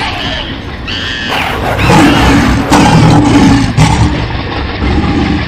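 A big cat roaring, loud and deep from about two seconds in until about four seconds in, with short high cries just before it.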